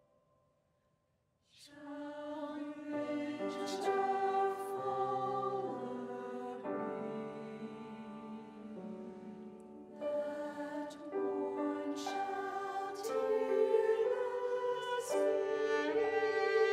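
Mixed church choir singing in sustained chords, accompanied by cello and piano. The music comes in after about a second and a half of near silence.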